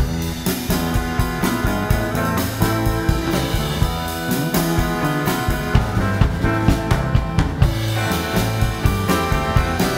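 Live band playing a tune: drum kit keeping a steady beat under electric guitar, accordion, keyboard and bass guitar.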